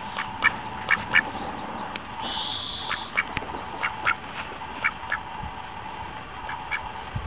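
Duck quacking: about a dozen short quacks at irregular intervals, the loudest in the first second and a half, over a steady faint hum.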